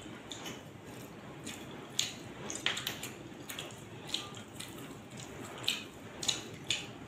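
Wet eating sounds of a man chewing gravy-soaked parotta and chicken fry eaten by hand: irregular sharp lip smacks and squishy chews, with louder smacks about two seconds in and several more near the end.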